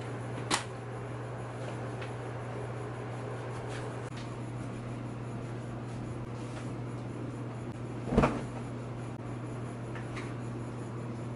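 Household knocks over a steady low hum: a sharp knock about half a second in and a louder, heavier thump about eight seconds in, with a few faint ticks between.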